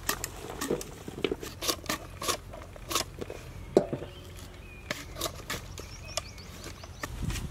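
Irregular sharp clicks and knocks of knives cutting raw green mangoes into pickle pieces, with cut pieces landing in a large aluminium pot.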